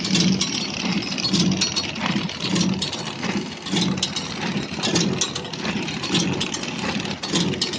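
Horizontal flow-wrap packaging machine running, with a rhythmic clatter repeating a little under twice a second and sharp clicks over it.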